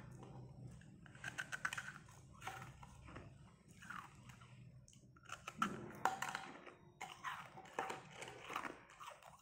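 Carbonated ice, a porous, snow-like ice, being chewed: irregular clusters of soft, crackly crunches with short pauses between them, the loudest about six seconds in.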